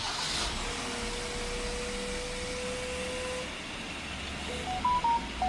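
Kia Bongo LPI truck's LPG engine idling after a remote start, with a steady electronic tone for about three seconds and a short run of beeps stepping up and down in pitch near the end.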